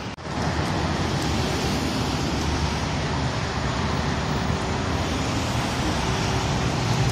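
Steady road traffic noise, after a very short dropout right at the start.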